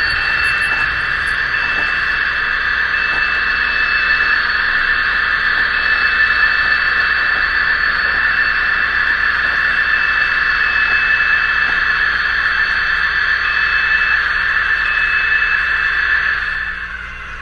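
Märklin mSD3 sound decoder playing a diesel engine sound through a BR 218 H0 model locomotive's small speaker: a steady, hissy engine drone with a thin high whistle coming and going, dropping away near the end. The sound does not change with the locomotive's speed or how hard it works.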